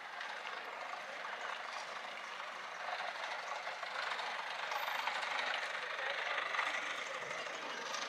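City street ambience: a steady hiss of passing traffic that grows louder from about three seconds in and eases again near the end.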